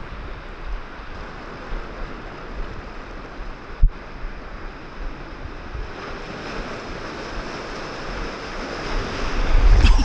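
Sea surf washing against a rocky shore, with wind buffeting the microphone and a single low thump about four seconds in. Near the end the water noise swells as a wave surges up and splashes right at the microphone.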